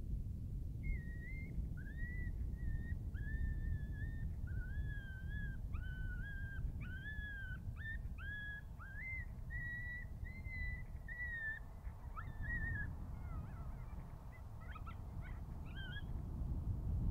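A predator call plays a long series of high, whining, yelping animal calls. Each note slides up into a held tone, and near the end they break into short, sharp yelps. Wind rumbles steadily on the microphone underneath.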